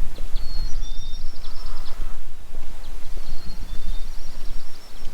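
A songbird sings a high trilled song twice, each lasting about a second and a half, with a few short whistled notes between, over a steady low rumbling noise.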